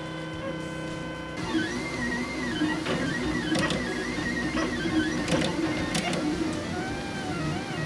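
Robo3D 3D printer's stepper motors whining as the print head moves. At first it holds steady tones; about one and a half seconds in the pitches begin rising and falling in repeated arcs as the head traces curved layers, with a few sharp clicks. Music plays alongside.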